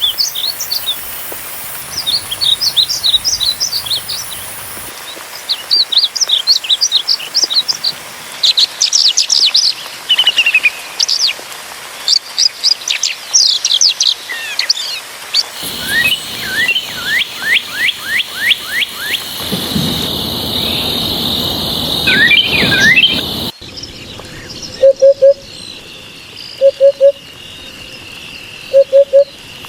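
Small birds chirping in quick, repeated high trills and short rising and falling notes, in several recordings joined by abrupt cuts. In the last few seconds the chirping gives way to a steady high buzz and a low double note repeating about every two seconds.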